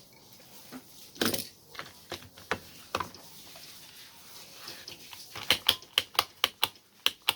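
A few scattered knocks and clicks from the angle grinder's plastic housing and switch parts being handled, then from about five seconds in a quick run of sharp clicks, about five a second, as the newly freed trigger switch is pressed and released over and over.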